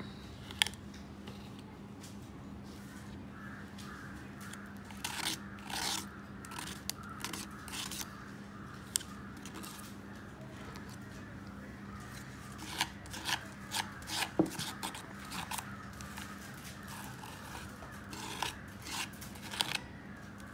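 Palette knife scraping white texture paste across a plastic stencil on a coaster, in short irregular strokes with a few sharp clicks.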